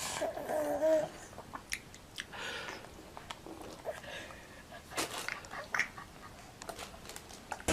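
A baby makes a short vocal sound in the first second, then scattered small clicks and faint noises follow.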